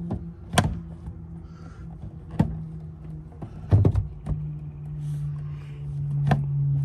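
Several sharp clicks and knocks of hands pressing and handling the plastic interior trim and tail light mounting, spaced out with a few close together near the middle, over a low steady hum.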